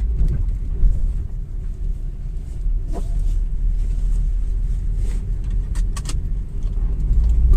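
Low, steady road and engine rumble inside a moving car's cabin with the door trims removed, and a few faint clicks; no rattling stands out, and the cabin is taken to be quiet.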